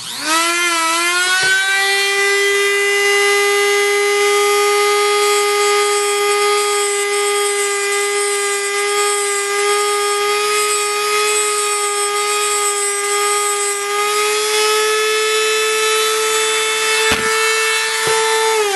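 Eastwood tungsten grinder's electric motor switched on, spinning up with a rising whine, then running with a steady high whine while a 1/32-inch tungsten electrode is ground on its diamond wheel at the 22.5-degree setting. A few light knocks are heard, the pitch steps up slightly near the end, and the motor is switched off right at the end, its whine starting to fall.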